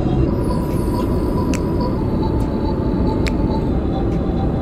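Steady cabin noise of a Boeing 777-300ER airliner in cruise flight, a low even rush of engine and airflow noise, with a couple of light clicks.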